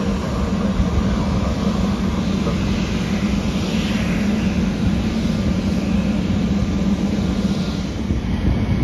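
Jet engines of a taxiing Spirit Airlines Airbus A320-family airliner at idle: a steady drone with a low hum.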